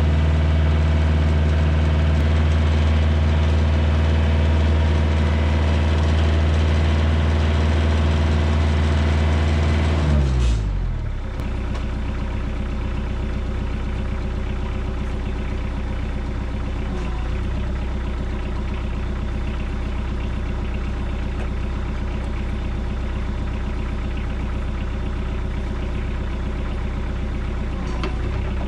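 Kioti DK40se compact tractor's diesel engine running steadily at raised revs as the tractor eases backward to hitch onto the sawmill trailer, then throttled down to a lower idle about ten seconds in, where it runs on steadily.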